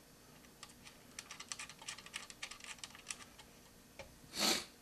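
Small metal cooler-mounting adapter screws being threaded by hand into the corner holes of an LGA 2011 CPU socket: a run of light, irregular clicks and ticks. A short breathy hiss comes near the end.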